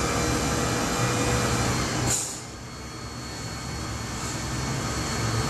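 Cordless drill running a stirring shaft through a kettle of hot wort, spinning it into a whirlpool. The sound drops away suddenly about two seconds in, then builds back up gradually.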